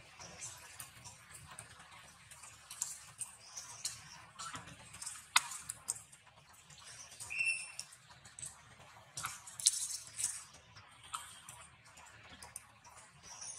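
Scattered rustles and small clicks of macaques moving and handling each other among weeds and dry leaf litter, with one sharp click about five seconds in and a short high squeak a couple of seconds later.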